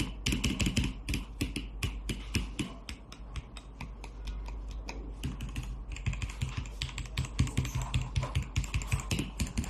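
Mechanical keyboard being typed on fast, a dense run of key clacks that eases off about three seconds in and picks up again around six seconds.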